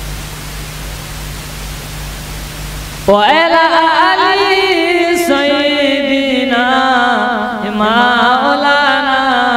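A steady hiss with a low hum for about three seconds, then a man's amplified voice cuts in suddenly, chanting a sung devotional line whose pitch bends and wavers.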